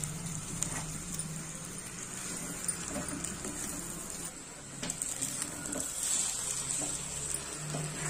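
Fish roe masala sizzling in a metal kadai as it is stirred and turned over with a steel spoon, with scattered scrapes and taps of the spoon against the pan over a steady low hum.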